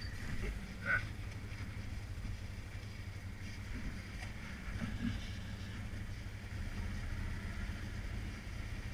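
ATV engine running steadily at low revs as the quad crawls over a rocky trail, a constant low rumble.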